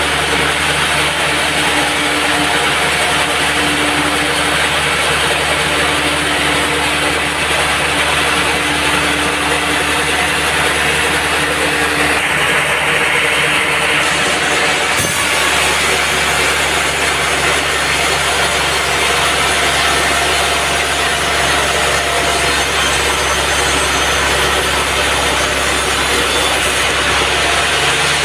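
Band sawmill running steadily, its blade cutting through a log, with a sharp change in the sound about halfway through.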